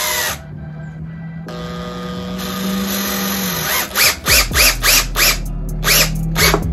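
Cordless drill driving a screw into a 2x4: the motor runs steadily for a few seconds, then is pulsed in short bursts, about three or four a second, each revving up and back down, as the screw is seated.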